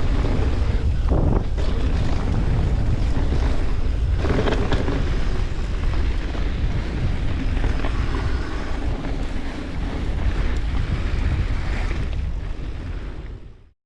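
Wind rushing over the microphone on a fast mountain bike descent, over a steady rumble of tyres on a dirt trail, with a few knocks and clatters from the bike over bumps. It fades out near the end.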